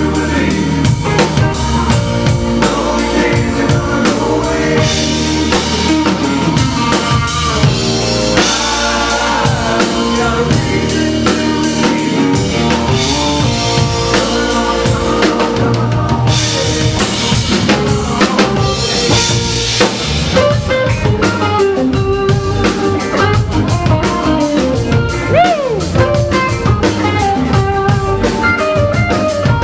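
Live rock band playing a grooving song: a drum kit with snare and bass drum keeps a steady beat under electric guitars.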